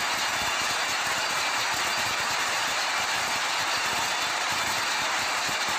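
Large multi-cylinder marine diesel engine of a ferry running, a steady loud mechanical din heard from close by in the engine room.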